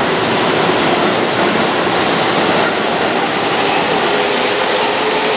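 Keihan 6000 series electric commuter train moving along the platform, a steady loud rush of wheel and running noise with a faint motor whine that rises slightly about four seconds in.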